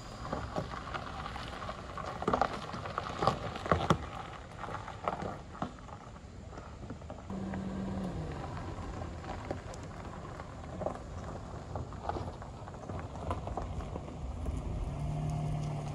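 Yellow Perodua Myvi hatchback on a gravel track: tyres crunching and popping over loose stones, most densely in the first few seconds, with the low hum of its running engine steadier from about halfway through.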